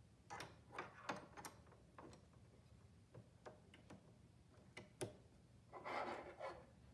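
Light clicks and taps of small metal and plastic parts as the bobbin case is worked out of a Janome 2212 sewing machine's hook race, then a short scraping sound about six seconds in.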